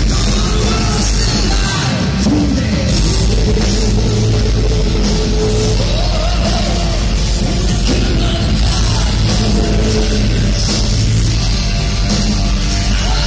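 Heavy metal band playing live: distorted electric guitars, a drum kit and sung vocals, loud and dense, heard from among the crowd.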